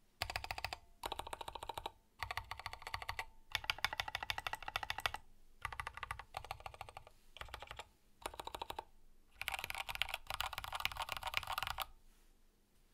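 Typing on a Grid 600 mechanical keyboard with lubed Kailh Box Black switches, a carbon fiber plate and Signature Plastics SA Pulse keycaps: runs of fast keystrokes broken by short pauses, stopping about a second before the end.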